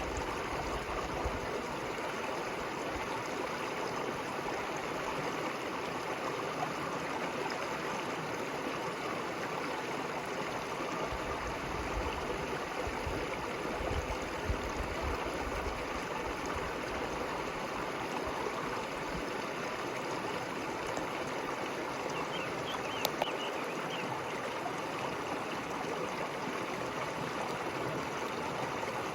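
River water flowing in a steady rush and burble. A single sharp click comes about three-quarters of the way through.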